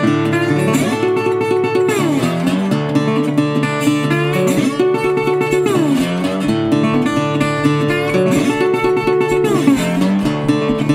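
Acoustic guitar music in a blues style, with sliding notes.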